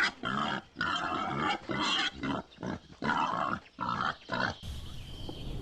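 A pig calling in a rapid series of about eight short, noisy calls, which stop about four and a half seconds in.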